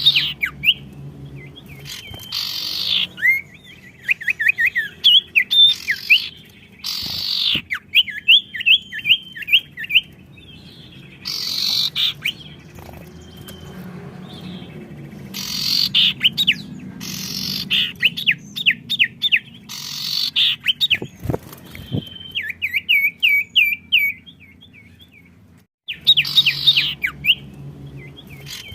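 Songbirds in full song answering one another: short, loud, bright chattering phrases alternate with quick runs of down-slurred whistled notes, over a faint low hum.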